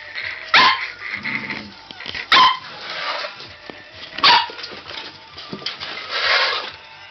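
Border collie puppy barking, three short sharp barks about two seconds apart, with a brief noisy burst near the end.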